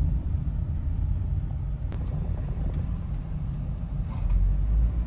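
Road noise heard inside a moving car: a steady low rumble of tyres and engine, with a single sharp click about two seconds in. The deep rumble grows stronger near the end.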